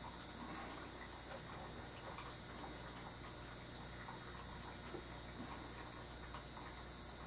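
Quiet room tone: a steady low hum and hiss, with faint, irregular light ticks and taps scattered through.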